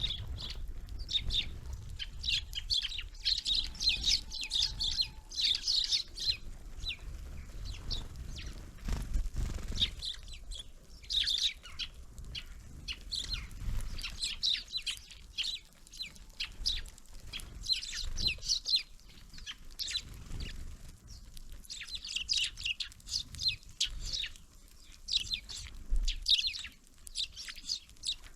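Small songbirds chirping: rapid clusters of short, high calls coming and going, over a low rumble.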